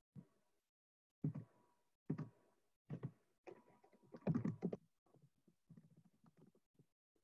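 Faint, irregular soft knocks and clicks, a handful spaced about a second apart, with a louder cluster about four seconds in and smaller ticks after it.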